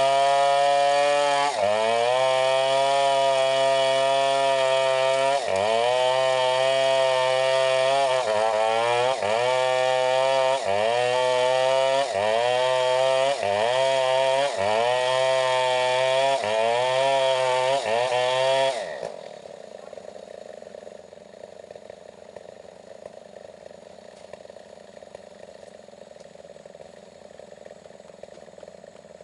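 Stihl 070 two-stroke chainsaw running at high revs, its pitch dipping and recovering about every second and a half. About 19 seconds in it drops back to a quiet idle.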